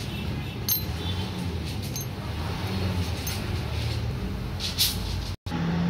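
Light metallic clicks and clinks, a handful spaced a second or so apart, as small parts of a diesel fuel injection pump are handled, over a steady low background rumble.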